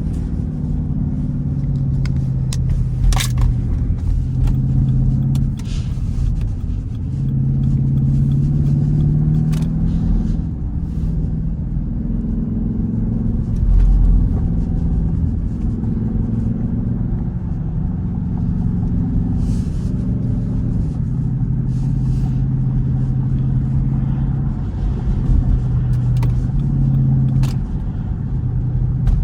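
Straight-piped Jeep Grand Cherokee SRT8's V8 running on the road, its deep exhaust drone rising and falling in pitch with the throttle. A few sharp clicks come through over it.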